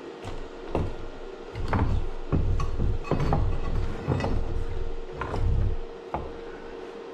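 Tools and metal parts knocked and shifted about on a wooden workbench: irregular clatter and dull thumps, busiest in the middle, over a steady faint hum.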